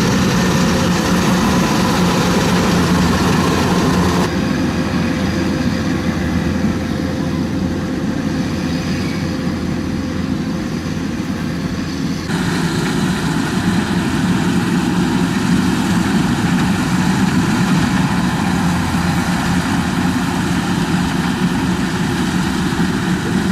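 Heavy farm machine engine running steadily, as on a rice combine harvester, its sound changing abruptly about four seconds in and again about twelve seconds in.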